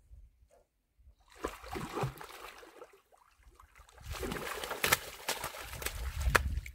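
A hooked rohu splashing and thrashing in the shallows as it is hauled in on a hand-line, in two bouts, the second louder, with two sharp slaps near the end as it is landed.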